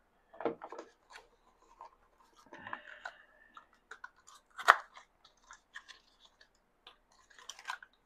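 Handling noises of unboxing: a small white plastic night light and its cardboard box being moved about on a cutting mat, with light scrapes, rustles and scattered knocks. There is one sharp click a little before the halfway point, and scuffing again near the end.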